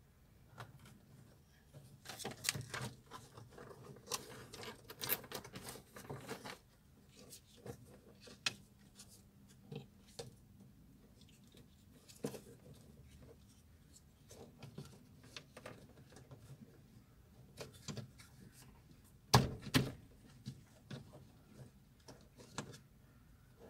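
Plastic car door trim being handled and pressed into place by hand: scattered clicks and rustles, a busier stretch of rubbing and knocking in the first few seconds, and one loud sharp knock near the end.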